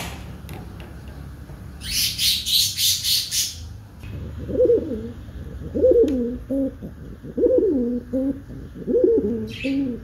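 Domestic pigeon cooing: a series of about five coos, each falling in pitch, through the second half. Before that comes a quick run of rustling strokes lasting about two seconds.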